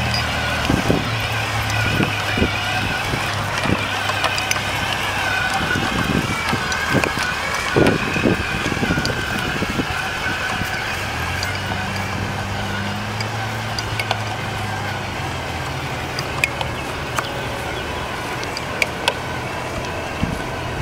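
Wind buffeting the microphone in gusts, strongest in the middle, over a steady low hum.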